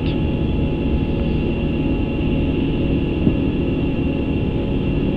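Steady flight-deck noise of an Airbus A350 in the climb after takeoff at climb thrust: a low rumble of airflow and engines, with a thin, steady high tone over it.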